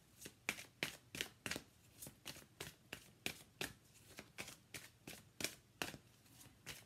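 A deck of Romance Angels oracle cards being shuffled by hand: a steady run of short, soft slaps of cards, about three a second.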